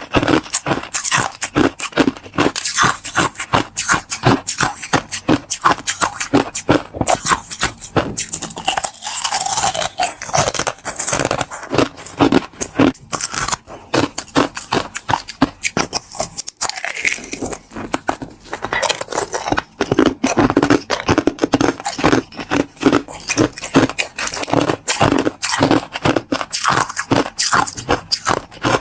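Close-miked chewing of clear 'crystal' ice, a dense run of sharp crunches and cracking bites with a brief pause about halfway.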